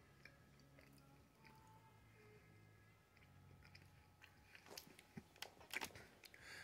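Faint chewing of a chocolate-covered peanut and caramel candy bar, with small crunches from the peanuts coming more often in the second half.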